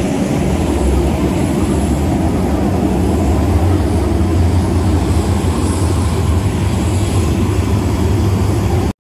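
Jet airliner engine noise on an airport apron: a steady loud rumble and hiss with a thin high whine above it.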